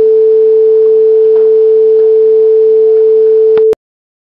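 A loud, steady electronic bleep: a single pure tone held at one mid pitch, cutting off abruptly about three and a half seconds in, followed by dead silence.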